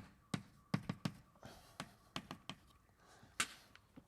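Chalk writing on a blackboard: a run of about a dozen sharp, irregular taps, with faint scraping between some of them.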